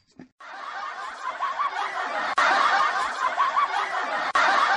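Canned laughter: a crowd laughing and chuckling continuously, starting about half a second in, a short laugh recording looped about every two seconds.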